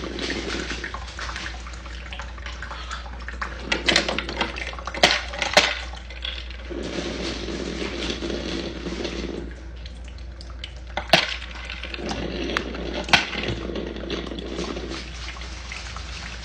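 Iced coffee maker brewing, hot coffee trickling and splashing into a cup of ice, with a few sharp clinks along the way.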